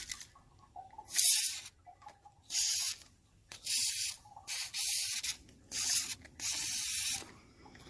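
WD-40 aerosol can spraying in about six short bursts, the last one longer, as penetrating oil is sprayed onto a rusted water heater rod to loosen it.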